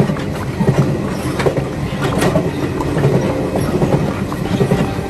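Running noise of a Taiwan Railway passenger train heard from inside the carriage: a steady rumble with a few sharp clicks.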